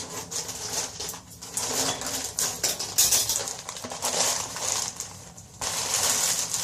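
Plastic parcel packaging rustling and crinkling as it is handled and opened, in irregular scratchy bursts with brief pauses.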